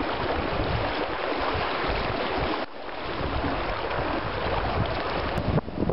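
Wind buffeting the microphone over the rush of water around a sailboat under way. The noise drops abruptly about two and a half seconds in and then builds back.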